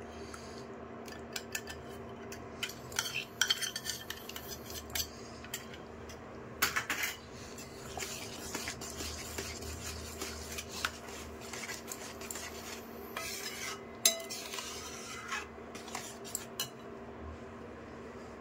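Steel spoon clinking and scraping against a steel bowl and a stainless steel pan as cashew paste is scraped out and stirred into thick gravy, with irregular clinks throughout. A steady low hum runs underneath.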